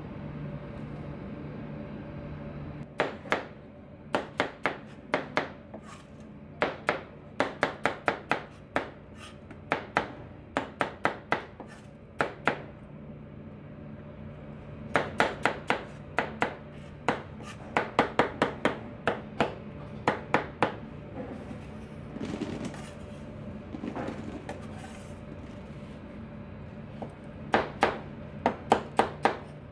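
Chinese cleaver chopping onions on a plastic cutting board: sharp knocks of the blade striking the board in quick runs of several chops, with pauses between runs, starting about three seconds in. A steady low hum runs underneath.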